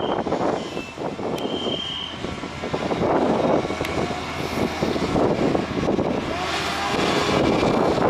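Distant engine rumble, rising and falling unevenly, with a short faint high tone about a second and a half in.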